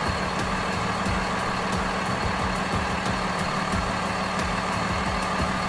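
Flatbed tow truck's engine running steadily: a constant low drone with a faint thin whine above it.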